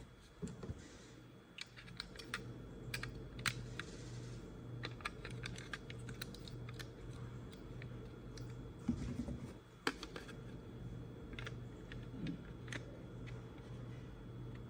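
Scattered small plastic clicks and taps from handling a wireless wall switch's plastic case, over a faint steady low hum; one click near the ten-second mark is louder than the rest.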